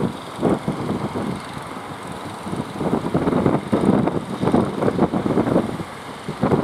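Outrigger fishing boat's engine running as it crosses breaking surf, mixed with wind buffeting the microphone in uneven surges.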